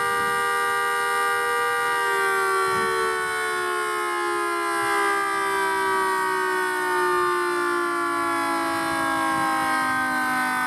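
Two-horn outdoor warning siren sounding a two-note chord, held steady for about two seconds, then slowly falling in pitch as the siren winds down.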